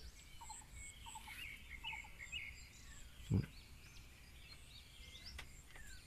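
Quiet outdoor birdsong: many short chirps and calls from several birds over a faint, steady, high insect note, with one brief low thump about three seconds in.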